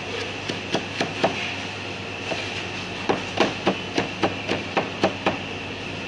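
Chinese cleaver chopping tomato flesh finely on a plastic cutting board: a few knocks in the first second, then, about three seconds in, a quick run of some nine chops at about four a second. A steady hum runs underneath.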